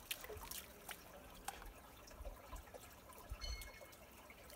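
Shallow mountain creek trickling quietly over rocks, with a few faint drips and clicks. A short high tone sounds briefly about three and a half seconds in.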